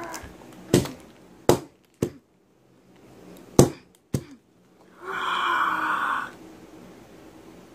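Five sharp knocks of plastic action figures bashed together and against the floor in a play fight, then a child's voice making a drawn-out groaning sound effect for about a second, near the end.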